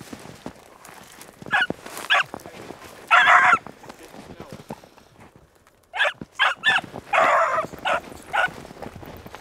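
Young beagle hound giving voice on a rabbit's scent trail in snow. Two short barks, then a longer bay; after a pause, a quick string of barks and another drawn-out bay near the end.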